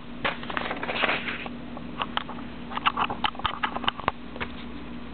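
Paper rustling and handling noise, then a run of sharp clicks and taps, as the sheet is changed and the recording device is moved, over a faint steady hum.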